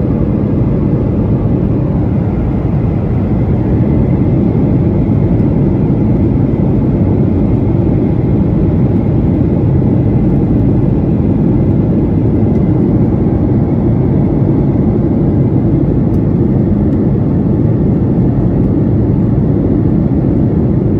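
Jet airliner cabin noise in flight: the steady, low-pitched drone of the engines and rushing air, heard from inside the cabin at a window seat.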